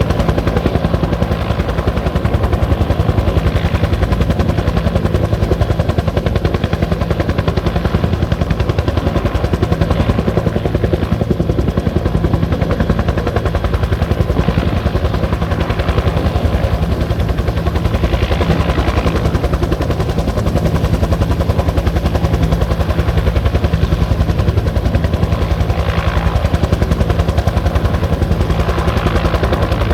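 Bell 205 helicopter running, its two-bladed main rotor beating in a steady, rapid chop over the turbine's hum.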